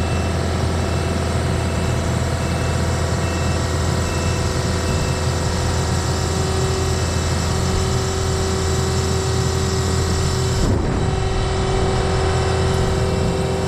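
An engine running steadily at a constant pitch. Faint, evenly spaced beeps sound over it for the first five seconds or so, and the sound briefly shifts about eleven seconds in.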